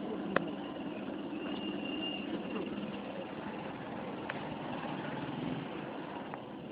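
Tricycle's motorcycle engine running steadily, heard from inside the sidecar cab, with a single sharp click about half a second in.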